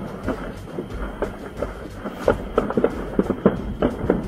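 Stored fireworks going off in a burning warehouse: an irregular crackle of many pops and bangs, several a second, over a low rumble.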